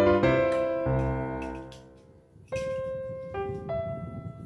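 Background piano music: held chords that die away about two seconds in, then single notes start again.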